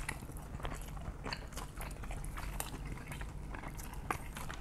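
Close-miked chewing of crisp fried birria tacos, with irregular small crunches and mouth clicks.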